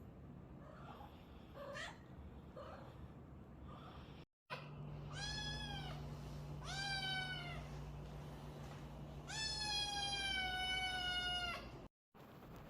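Tabby kitten meowing loudly three times, each meow falling in pitch and the third long and drawn out, demanding food. Before that, a few faint short rising calls, with a steady low hum under the meows.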